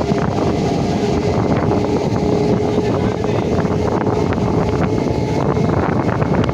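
Loud, steady vehicle rumble with irregular clatter and wind buffeting the microphone.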